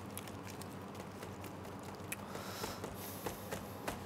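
Hands pressing and patting down a crumbly almond macaroon biscuit layer in a metal cake ring, giving faint soft rustles and a few light taps, over a steady low hum.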